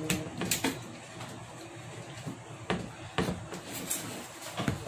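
Scattered light clicks and knocks, about eight at irregular intervals, from a metal sliding-door frame being fitted together and screwed by hand with a screwdriver.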